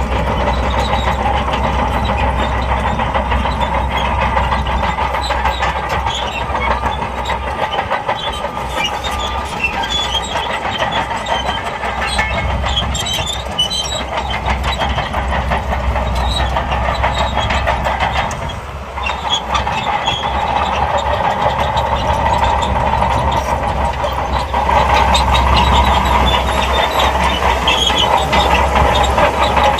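SHANTUI crawler bulldozer working: diesel engine running under load with its steel tracks clattering. The sound eases briefly a little past the middle and grows louder over the last few seconds.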